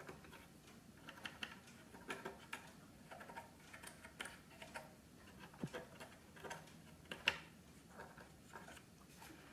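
Faint, irregular scratching and small clicks of a cotton swab scrubbing the bare membrane-switch contacts on a CPAP machine's plastic front panel, with one sharper click about seven seconds in.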